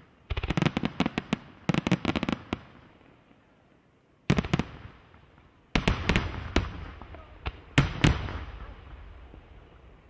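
Aerial firework shells bursting: two quick volleys of sharp crackling reports in the first two and a half seconds, then a single bang, then a string of loud shell bursts, each trailing off in an echo.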